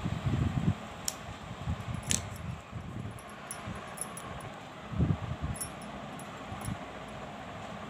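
Close handling sounds of a silk-thread-wrapped bangle and a small cutter: soft bumps near the start and again about five seconds in, with a few light clicks and ticks, over a steady hiss.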